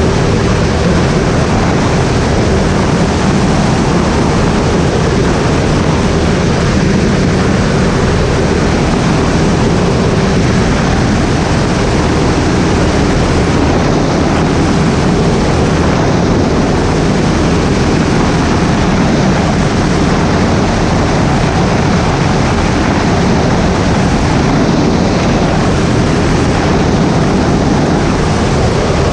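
Skyleader 500 light aircraft's engine and propeller running steadily, a constant loud drone with air noise, heard from on board.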